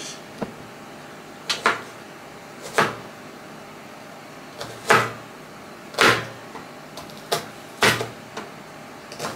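Kitchen knife slicing garlic and shallots on a plastic cutting board: single sharp knocks of the blade against the board, about ten of them at an unhurried, uneven pace.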